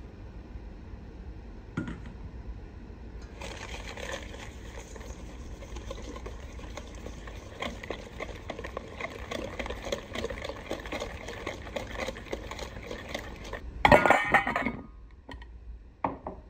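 Eggs and sugar beaten by hand in a stainless steel bowl: a rapid, steady scraping and clicking of the utensil against the metal for about ten seconds. Near the end, a short, loud clatter of metal, then a couple of lighter knocks.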